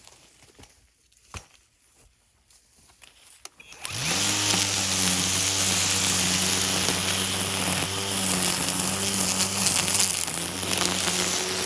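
Small gasoline engine starting about four seconds in, spinning up in pitch and then running steadily.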